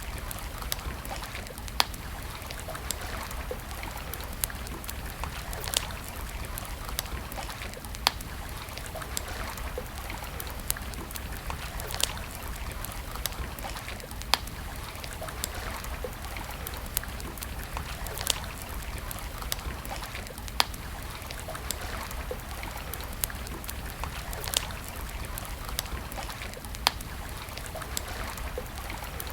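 Wood campfire crackling: a steady hiss and low rumble with frequent small snaps and a sharp louder pop every couple of seconds.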